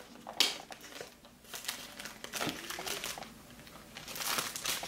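Clear plastic shrink wrap crinkling as it is peeled off a smartphone box, in uneven spells of crackle that are loudest just after the start and again near the end.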